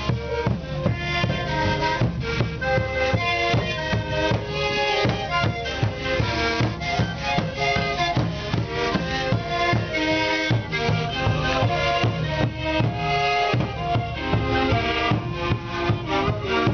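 Andean traditional band music played live: held, reedy panpipe melodies over a steady drum beat.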